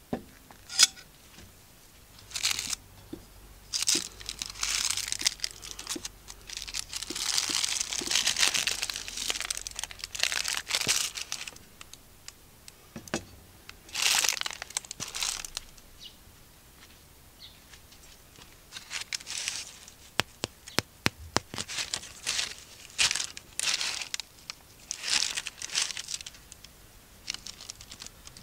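Parchment baking paper crinkling and rustling in irregular bursts as a freshly baked loaf is handled in it, with a sharp knock about a second in and short crackly rustles in the second half.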